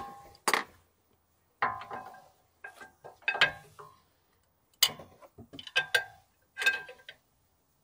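Metal tools and brake parts clinking and clanking during work at a car's rear brake: about seven separate metallic knocks and short rattles, some with a brief ring, coming at uneven gaps.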